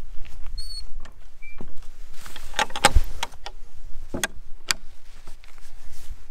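A metal field gate being opened and passed through: clinks and knocks of the latch and bars, a short high squeak, and a heavier thud about three seconds in, amid footsteps.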